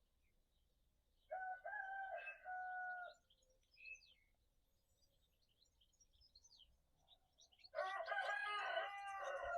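A rooster crowing twice, once about a second in and again near the end, with small birds chirping faintly in between.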